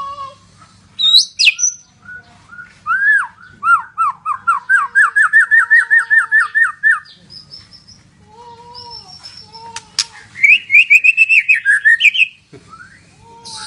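White-rumped shama of the Medan type singing: clear varied whistles and glides, with a fast run of repeated rising notes, about five a second for around three seconds, and a second quick run higher in pitch near the end.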